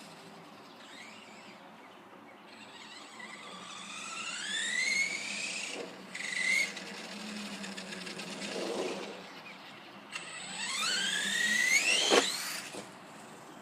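The electric motor of a Redcat Earthquake 8E RC truck whining up in pitch as it accelerates, several times over. The last and loudest run-up ends in a sharp knock about twelve seconds in.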